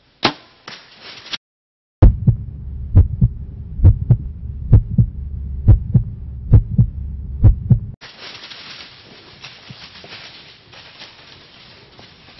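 Heartbeat sound effect laid over the footage: heavy low thumps repeating about twice a second over a steady low hum, which stop abruptly about eight seconds in, leaving faint woodland hiss. A single sharp snap comes just after the start.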